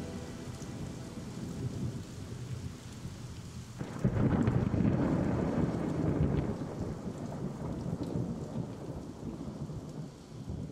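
Steady rain falling, with a thunderclap breaking in about four seconds in and rumbling away over the next several seconds.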